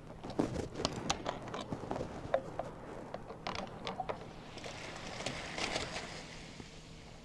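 Light clicks and knocks from handling a plastic bottle of tonic water as Mentos go in, then, from about four and a half seconds in, a soft fizzing hiss as the foam rushes up out of the bottle and slowly dies down.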